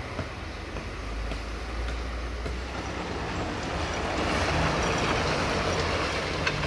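Diesel dump truck driving by on a road, its engine and tyres growing louder through the middle and easing off near the end, over a low steady rumble.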